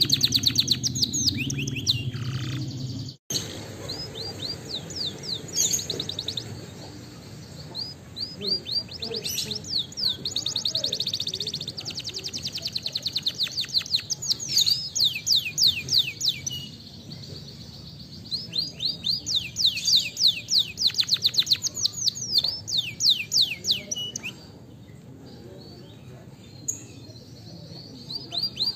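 Domestic canary singing: fast trills of repeated high sweeping notes, in phrases a few seconds long separated by short pauses.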